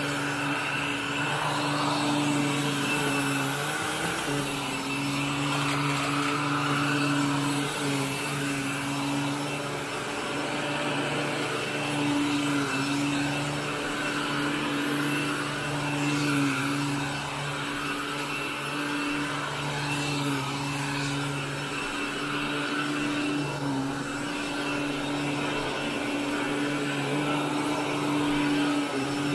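Commercial upright vacuum cleaner running on carpet: a steady motor hum with a rushing of air, wavering briefly a few times as it is pushed across the pile.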